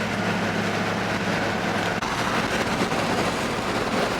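1964 Pontiac Bonneville's 389 V8 running steadily under way, with road noise, heard from inside the car.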